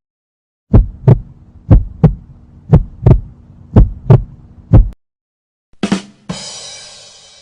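Heartbeat sound effect: low, paired lub-dub thumps, about one beat a second, for roughly four seconds. Near the end comes a sharp hit, then a bright crash that fades away.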